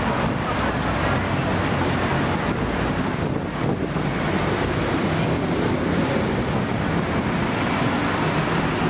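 Steady roar of busy street traffic, an even rumble of engines and tyres with no single vehicle standing out.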